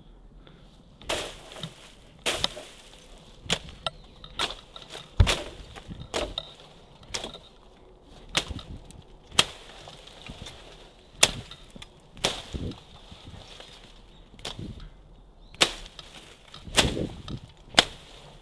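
Weeds and brush being hacked down with a hand saw: sharp cutting strikes about once a second, unevenly spaced.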